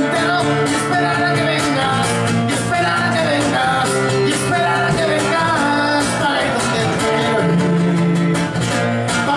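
A male voice singing live, with held and gliding notes, while he strums an acoustic guitar in a steady rhythm.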